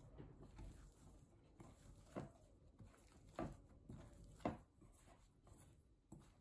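Hands kneading glutinous rice flour (shiratamako) dough with mugwort paste in a bowl, faint: soft rubbing and squashing, with three firmer presses about two, three and a half and four and a half seconds in.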